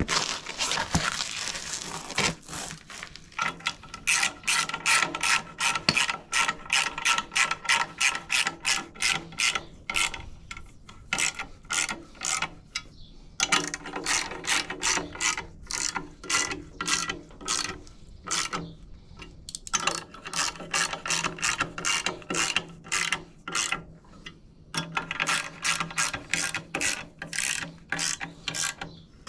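Hand ratchet wrench clicking in runs of quick clicks with short pauses between strokes, running down clutch pressure plate bolts snug before they are torqued.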